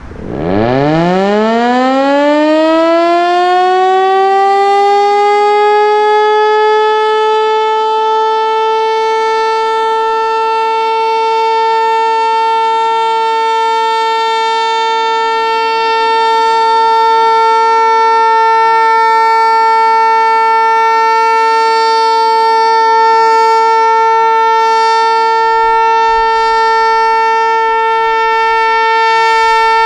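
ASC T-121 outdoor tornado siren sounding its steady Alert signal. It winds up from a standstill, its pitch climbing steeply over the first few seconds and levelling off, then holds one steady tone.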